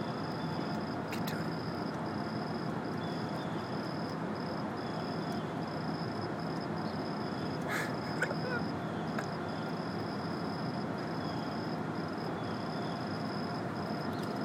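Steady background noise, with a faint high-pitched tone pulsing on and off and a couple of brief clicks about halfway through.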